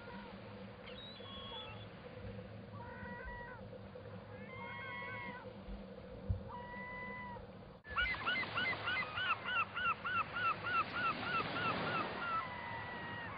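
Black scoters calling: drawn-out, plaintive whistled notes every second or two. After a brief dropout, a fast run of short, upward-flicking whistles comes at about three a second, then a couple of longer notes near the end.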